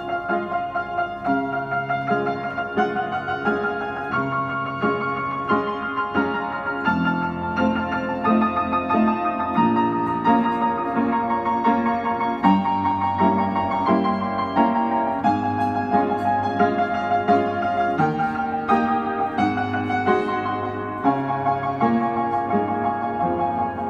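Upright piano being played by hand from sheet music: a continuous passage of chords with a melody line over changing bass notes.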